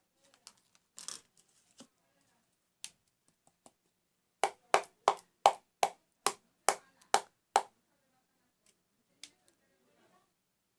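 A series of about eight sharp, evenly spaced knocks, roughly two and a half a second, typical of a spoon rapped against the rim of a cup to shake off slime mixture. A few faint clicks and scrapes come before them.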